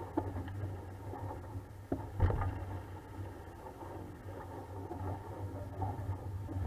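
Sounds aboard a 420 sailing dinghy under way: a steady low rumble with irregular crackle, and one sharp knock a little over two seconds in.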